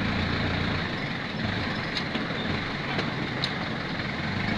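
Jeepney engine running steadily, a low hum under even mechanical noise, heard from on board.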